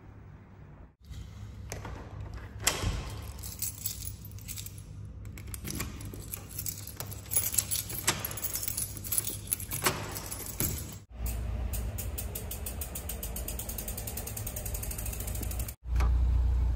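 A bunch of keys jangling and a key working a door lock, with repeated clicks and rattles. After a cut, a car's steady low driving rumble, louder near the end.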